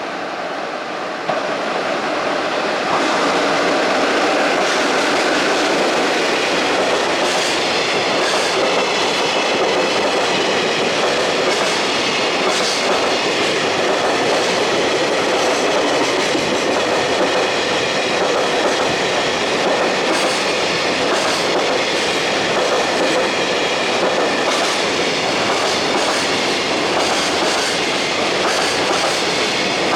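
Freight train passing through a station: a continuous rumble of steel wheels on rail with clicking over the rail joints. It builds over the first few seconds and then holds steady.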